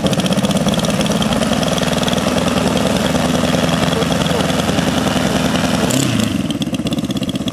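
O.S. FT-160 four-stroke boxer twin glow engine of a giant-scale RC model plane, freshly started by flipping the propeller by hand, running steadily on the ground.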